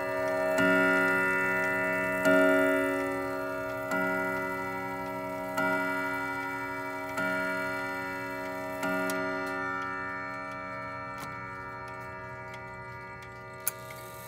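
Howard Miller Lewis triple-chime wall clock striking the hour on its chime rods: six slow, evenly spaced strikes about a second and a half apart, each ringing and fading. As the last strike dies away the movement's ticking comes through, with one sharp click near the end.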